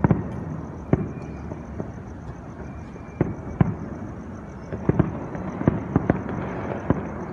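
Aerial fireworks display: shells bursting with about a dozen sharp bangs at irregular intervals, coming closer together in the second half.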